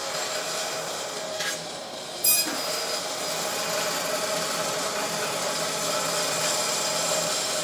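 Bandsaw running and its blade cutting a curved pattern through a 2x6 board, a steady sawing noise with one sharp click about two seconds in.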